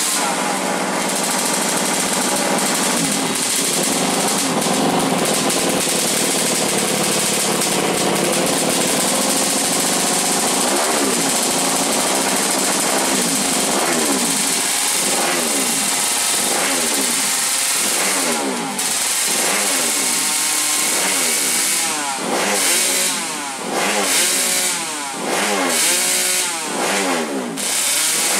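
Grasstrack motocross bike with a Kawasaki Ninja two-stroke engine, running through its exhaust. It runs steadily at first. From about ten seconds in the throttle is blipped over and over, so the revs rise and fall repeatedly, and the blips come quicker near the end.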